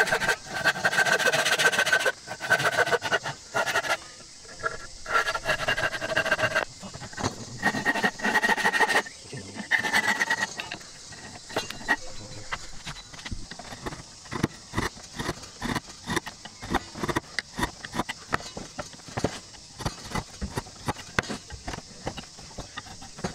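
Japanese pull saw cutting across a wooden tenon shoulder in long rasping strokes. After about ten seconds these give way to quicker, shorter scrapes and clicks as a chisel pares the cut by hand.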